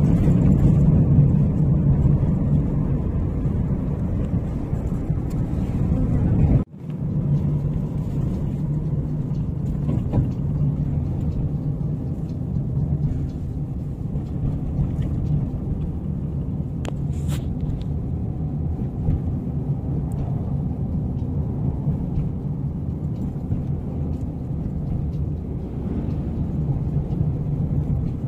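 Steady low rumble of a car's engine and road noise, heard from inside the cabin while driving. The sound cuts out for a split second about seven seconds in.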